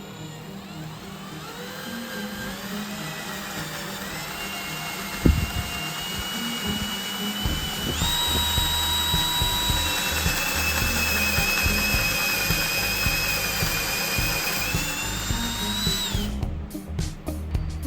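Small electric power-tool motor running with a high whine that climbs in steps as it speeds up, holds steady, rises once more and then cuts off suddenly near the end. There is a sharp knock about five seconds in.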